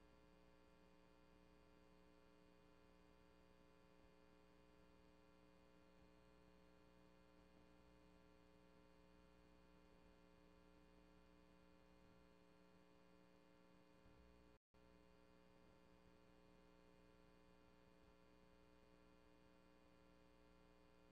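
Near silence: only a faint steady electrical hum from a dead audio feed, cutting out completely for a split second about two-thirds of the way through.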